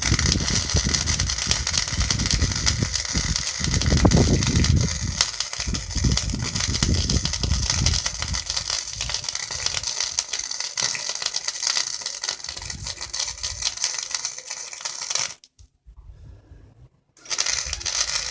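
Welding arc crackling steadily. It stops about 15 seconds in and strikes up again near the end.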